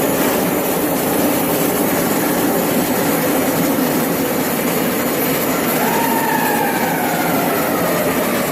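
Belch torch burning at full flame with a loud, steady rushing noise. A faint whistle slides downward in pitch over the last few seconds.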